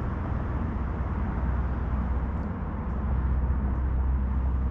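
Wind blowing across the camera microphone: a steady low rumble with a fainter hiss above it, swelling a little near the end.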